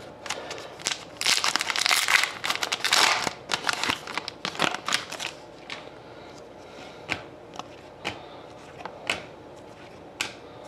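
Trading card pack wrapper torn open and crinkled, then the hockey cards flicked off the stack one at a time, each a short sharp snap about once a second.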